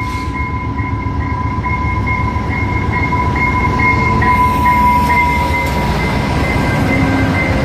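VIA Rail passenger train led by P42 locomotive 911 passing close by with a steady low rumble. A bell rings over it about three times a second with a steady high tone, typical of the locomotive's electronic bell.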